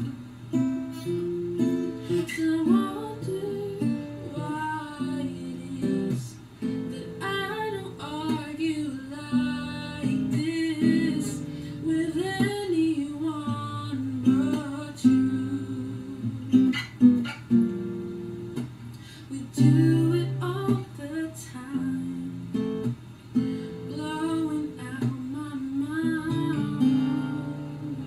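A woman singing to her own steel-string acoustic guitar, which she picks and strums as accompaniment. Her voice comes and goes in phrases over the guitar, which plays without a break.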